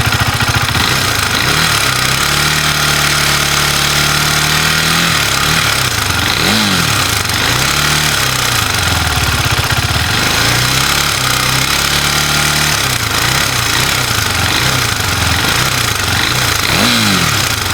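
KTM Duke 390 single-cylinder engine running, held at raised revs and then blipped up and down several times with the throttle. Throughout there is a strong odd mechanical noise from inside the engine, which the mechanic traces to the timing chain.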